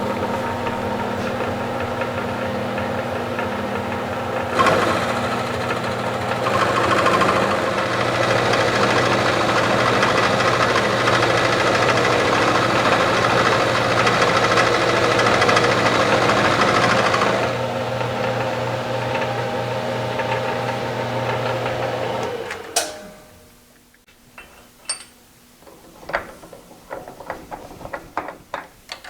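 Milling machine running, cutting steel: its motor hums steadily, and for about thirteen seconds the cut adds a louder, harsher noise. The machine is switched off a few seconds before the end, and scattered metal clicks and taps follow.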